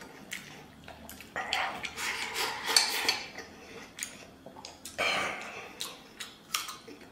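Chopsticks clicking and scraping against a stainless steel bowl as rice and braised pork intestine are shoveled into the mouth, with chewing between. Two longer scraping stretches, one from about a second and a half in and another about five seconds in.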